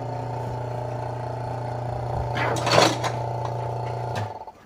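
Electric vacuum pump of a countertop seam-setting kit running with a steady hum, then shutting off near the end. A short rushing noise comes through about two and a half seconds in.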